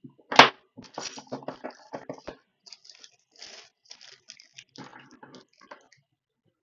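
Small parts and tools being handled on a workbench: irregular clicks, taps and rustling, with one sharp knock about half a second in.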